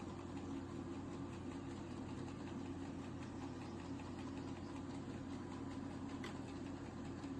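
ILIFE A12 Pro robot vacuum running with a steady low motor hum as it makes its way back to its charging dock.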